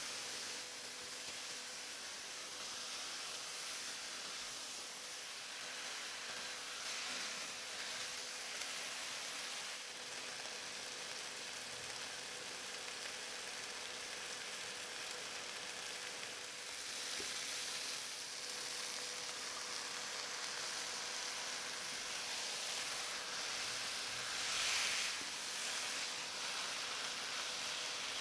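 Raw bone-in chicken pieces sizzling in a pot with sautéed chopped onion: a steady frying hiss that swells louder several times as the pieces are turned with a wooden spatula. A faint steady tone runs underneath.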